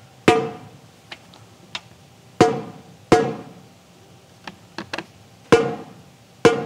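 Drumstick tapping near each lug of a Ludwig Black Beauty snare drum's very tightly tuned bottom head: five firm taps and several lighter ones, each ringing at the same high pitch. The even pitch at every lug is the sign that the head is evenly tensioned, at about 400 Hz on the tuner.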